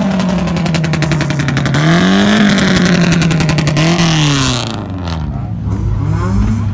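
A car engine revved repeatedly: about three revs, each rising in pitch, holding briefly and falling back.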